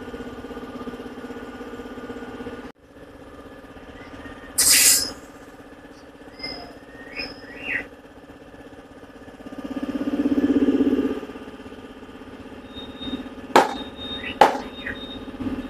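Tyre being inflated with shop air: a steady machine hum with one short, sharp burst of hissing air about five seconds in, a few small squeaks, and sharp clicks near the end.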